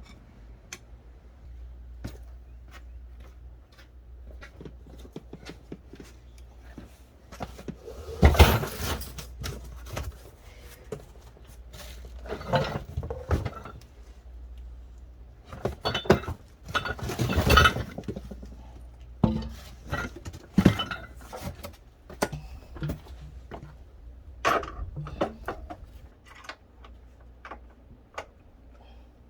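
Metal tools and parts clinking and clanking in irregular handling, with louder clusters of knocks about eight and seventeen seconds in.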